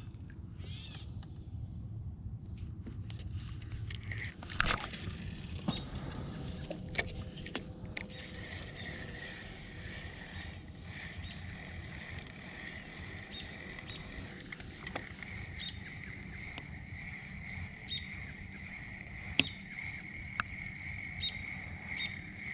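Outdoor ambience from a fishing kayak: a steady insect buzz with faint bird chirps, under a low rumble of wind or water. A few sharp knocks of gear handled against the kayak, the loudest about two-thirds of the way in.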